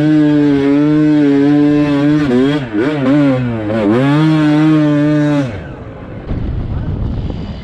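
Dirt bike engine running hard under the rider. Its pitch drops and climbs back twice in the middle as the revs fall and pick up again. About five and a half seconds in, the engine sound cuts off suddenly, leaving a quieter rushing noise.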